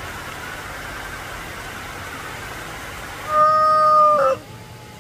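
Steady hum of a passing motor vehicle, then a vehicle horn honks once, a flat steady tone held for about a second that dips in pitch as it cuts off, the loudest sound.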